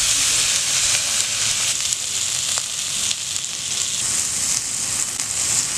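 Lingcod fillets frying in a hot pan: a steady sizzle.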